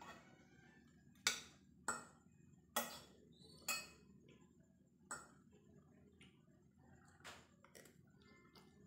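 Metal spoon and fork clinking against a ceramic dinner plate while cutting and scooping food: about seven short, sharp clinks, spaced irregularly, the loudest in the first four seconds.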